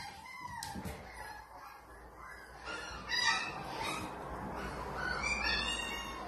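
Young puppies whining and yipping in short, high-pitched cries that rise and fall in pitch, coming again and again, the loudest a little after three seconds in.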